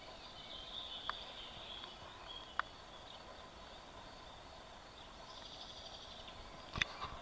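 Outdoor rural ambience: faint, high-pitched chirping over a steady background hiss, with a few short sharp clicks, the loudest near the end with a low bump.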